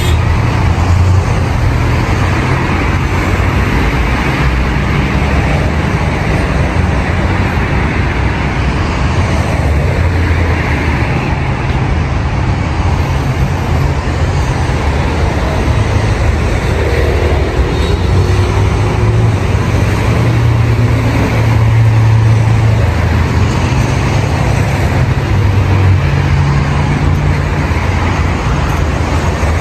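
City road traffic: a steady rumble of car engines and tyres on the street alongside, swelling several times as vehicles drive past.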